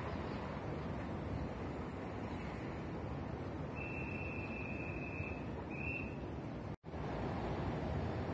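Steady outdoor background noise. A thin, high whistle-like call comes in about four seconds in and lasts over a second, followed by a shorter one. Near the end the sound cuts out abruptly for an instant.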